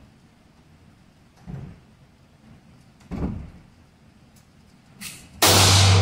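Gunfire on an indoor range: two dull thumps about a second and a half apart, then a much louder shot near the end that rings on in the range's echo.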